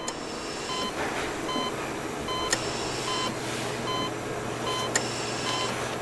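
Short electronic beeps repeating every half second or so over a steady rushing noise, with two sharp clicks and a low hum coming in partway through.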